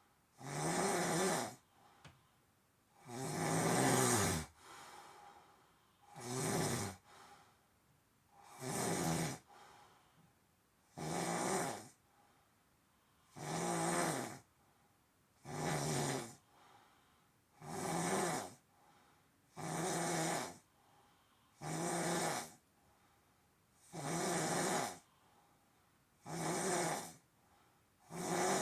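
Someone asleep snoring steadily: one loud snore about every two seconds, each lasting under a second, with quiet between.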